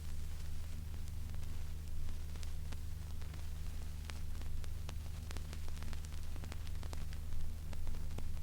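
Vinyl LP surface noise with the stylus still in the groove after the music has ended: steady hiss and a low hum, scattered with crackle and pops that grow more frequent in the second half. It is an unprocessed transfer, so none of the record's noise has been removed.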